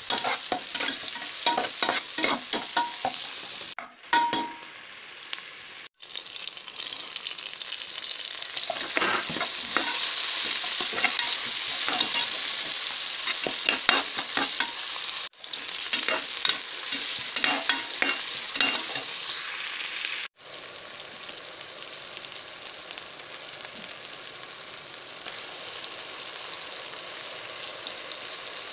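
Sliced onions, then tomatoes and green chillies, sizzling as they fry in oil in a metal pot, with a spoon scraping and knocking against the pot as they are stirred. The sound cuts off abruptly a few times, and after about two-thirds of the way through it settles into a steadier, quieter sizzle.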